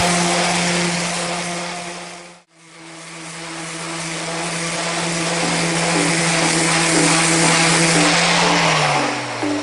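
Makita 18V cordless random orbital sander running steadily against the wood with a constant hum and a hiss of sanding. It fades out briefly about two and a half seconds in and comes back, and near the end the hum falls in pitch as the motor is switched off and winds down.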